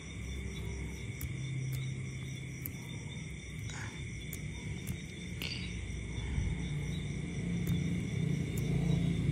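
Night insects trilling steadily over a low rumbling drone, which swells in the second half.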